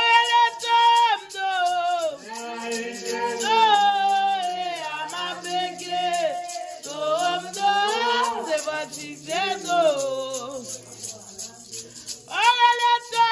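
A woman singing a slow Haitian Vodou song in long held and gliding notes, with short breaks between phrases.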